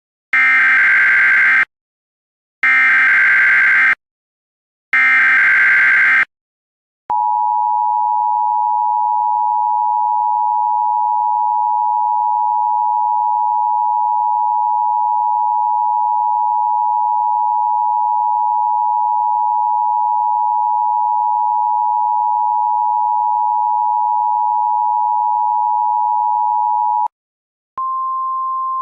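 Emergency Alert System tones: three short screeching bursts of digital header data, then the two-tone attention signal held steadily for about twenty seconds. It cuts off, and near the end a single slightly higher steady alert tone begins. Together they herald a tornado warning.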